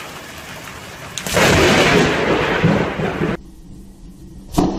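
Thunder from a close lightning strike: a sudden loud crash about a second in that lasts about two seconds, then cuts off abruptly.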